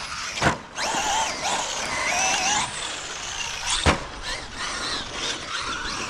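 Traxxas Maxx Slash RC truck's brushless motor and drivetrain whining, rising and falling in pitch as the throttle is worked. Two sharp thumps cut through it, about half a second in and near four seconds in, the second one louder.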